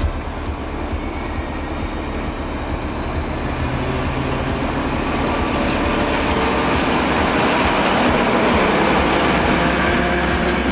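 Class 754 diesel locomotive hauling passenger coaches passing close by. The running noise builds over several seconds as the locomotive draws level, then carries on as the coaches roll past.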